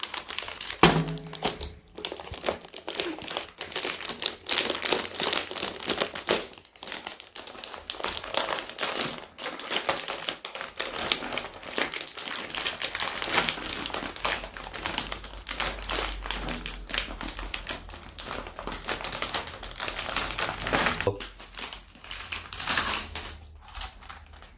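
Toy packaging being opened by hand: a long run of rapid crinkling and crackling of plastic and cardboard, with taps and knocks, dying away shortly before the end.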